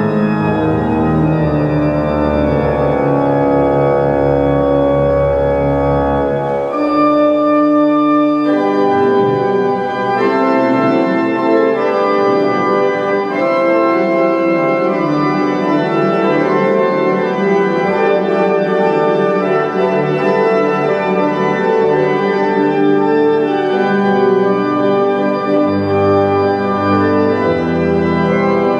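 M.P. Möller pipe organ with digital augmentation playing sustained chords. A deep pedal bass holds for about the first seven seconds, drops out, and comes back in near the end.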